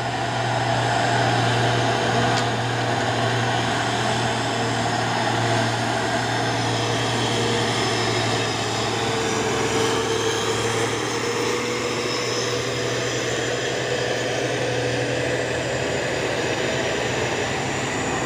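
Heavy diesel trucks, among them a Hino, driving uphill past at close range: a steady deep engine drone, with the engine note rising a little about ten seconds in as the Hino comes closer.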